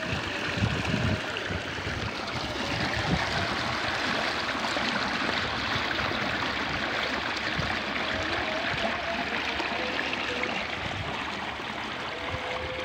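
Water rushing and splashing down a concrete irrigation channel, churning white over stones, in a steady, unbroken flow.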